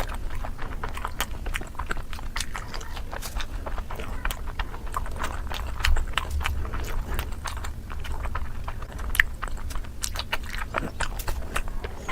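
Close-miked chewing of steamed momo dumplings: a dense, irregular run of small clicking and smacking mouth sounds, over a low steady hum.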